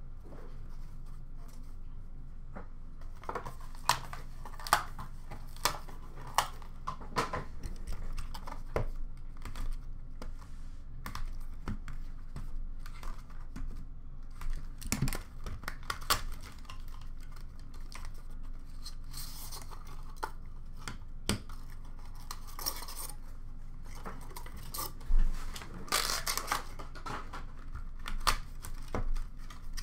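Hands opening sealed Leaf Ultimate hockey card boxes: cardboard and plastic wrapping tearing and crinkling, with scattered clicks and taps as the boxes and cased cards are handled. The handling starts a few seconds in, with the longest stretches of tearing near the end.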